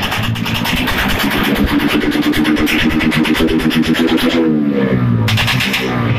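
Suzuki Raider 150's single-cylinder four-stroke engine revving through a loud aftermarket 'bombahan' exhaust pipe: held at high revs, dropping about four seconds in, then revved up again near the end.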